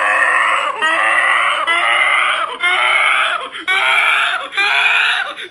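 A girl's high scream, repeated six times at about one-second intervals, each cry held at a steady, slightly rising pitch.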